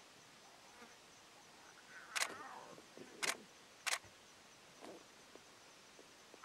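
Lion cubs giving short, sharp squeals and spitting calls as they jostle for a teat on a suckling lioness. Three quick calls come about two, three and four seconds in, the first with a falling squeal, then a fainter one near the end.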